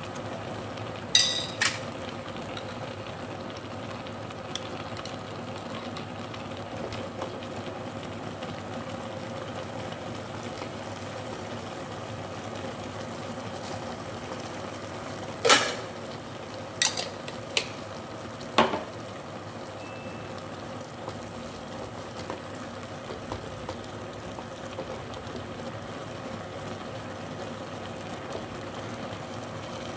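Steel pot of vegetable stew bubbling steadily on an induction cooktop. A few sharp clicks come about a second in and again in a cluster around halfway, as a spatula stirs and knocks against the pot.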